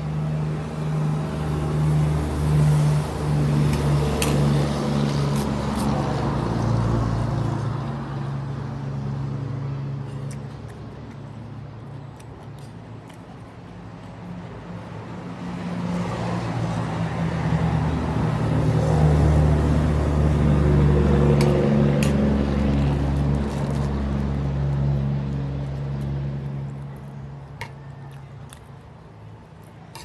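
Motor vehicle engines passing, in two long swells: one loud at the start that fades away, and another that builds about halfway through, peaks and dies down near the end. A few light clicks sound over them.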